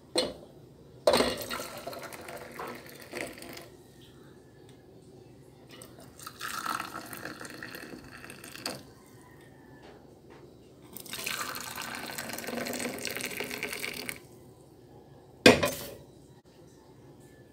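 Moringa tea poured from a stainless steel saucepan into enamel mugs: three pours of a few seconds each. A sharp knock comes right at the start and another near the end.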